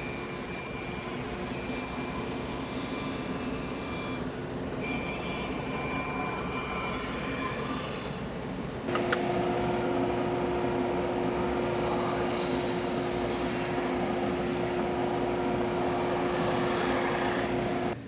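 Bandsaw running and cutting a curved shape in a piece of plywood. About nine seconds in it cuts to a RIDGID oscillating edge belt sander running steadily with a low hum as the curved edge is sanded.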